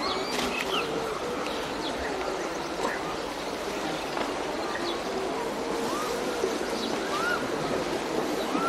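Birds calling over a steady background hiss: short chirps and repeated low arching calls typical of feral pigeons cooing.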